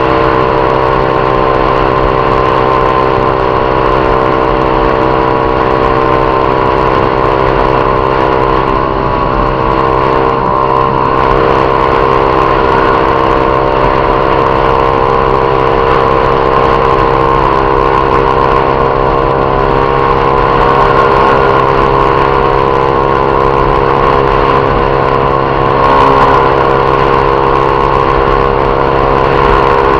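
Honda Titan 150's single-cylinder four-stroke engine running at steady revs under way, its note holding an even pitch.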